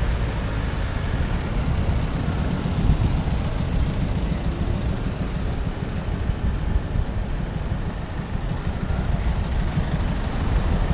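Steady wind rumble on the microphone of a moving bicycle, mixed with the engines and tyres of car traffic running alongside on the road.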